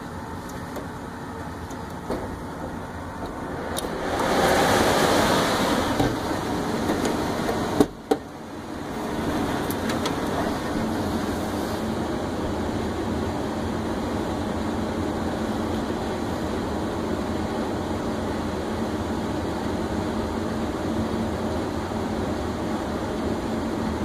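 Furnace air-handler blower running with a steady rush of air, with a louder swell of noise about four to six seconds in. About eight seconds in there is a sharp click and a brief dip, after which the blower comes back up and runs steadily louder on the black, higher-airflow speed tap.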